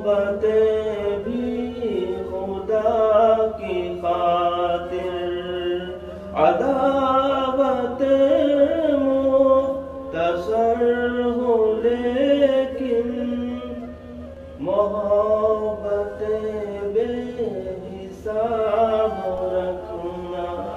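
A man's voice singing lines of an Urdu ghazal in long, drawn-out melodic phrases, with fresh phrases starting about every four seconds.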